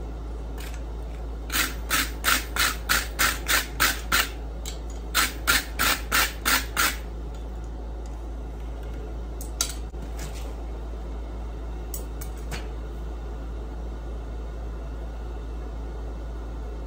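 Hand wire brush scrubbing scale off a hot forged steel hook held on the anvil: two runs of quick strokes, about three a second, then a single click and a few faint ticks. A steady low hum runs underneath.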